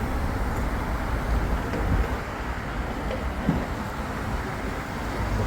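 Steady low rumble of road traffic, with some wind noise.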